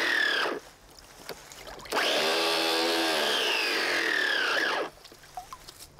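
Electric motor gearbox driving a 3D-printed centrifugal water pump at high speed, in two bursts: the first cuts off about half a second in, and the second starts about two seconds in and runs for about three seconds, its whine sliding down in pitch before it stops abruptly.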